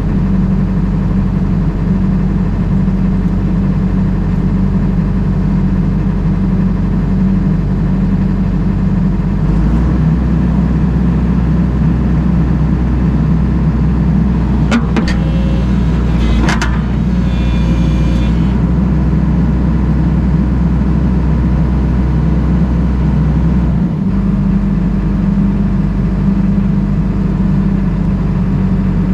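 Excavator engine running steadily, the machine run so a freshly resealed hydraulic fitting can be checked for leaks. About ten seconds in a deeper low hum joins and holds until about twenty-four seconds, with a few sharp clicks in the middle.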